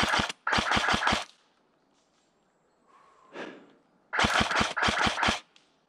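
Airsoft guns firing short full-auto bursts, each a rapid string of about eight shots a second. Two bursts come in the first second or so, then two more back to back about four seconds in.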